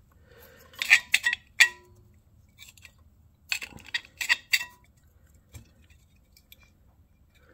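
Sharp metallic clicks and clinks from the sheet-metal brackets and ignition stop parts of a 5 hp Briggs & Stratton engine being handled, with the engine stopped. They come in two short clusters, about a second in and again about three and a half seconds in.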